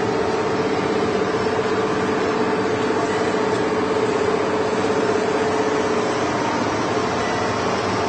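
Automatic knife grinding machine running steadily: an even rushing noise with a constant hum-like tone over it.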